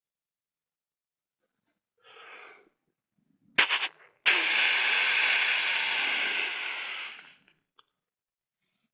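A hunter's mouth-made imitation of a whitetail buck's snort-wheeze, air blown out through the lips: three quick, sharp puffs, then one long hissing wheeze of about three seconds that fades at the end. A faint breath comes just before.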